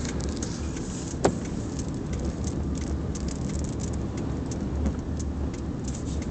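Steady low road and engine rumble inside a moving car's cabin, with scattered light ticks and rattles and one sharper click about a second in.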